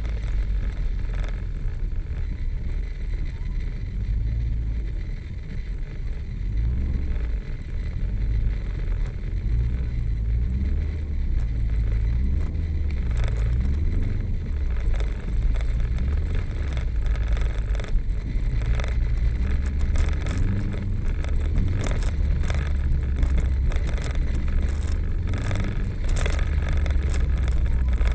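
Subaru flat-four engine revving up and down as the car is driven hard, under a heavy low rumble, with scattered short crackles.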